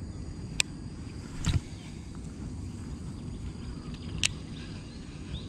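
Shimano Casitas baitcasting reel clicking sharply twice, once about half a second in and again a little after four seconds, with a louder brief whoosh about a second and a half in as the lure is cast. Steady low background noise throughout.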